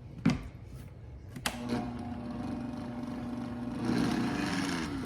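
A click, then a countertop smoothie blender's motor starts and runs with a steady hum, winding down with falling pitch near the end as it is switched off.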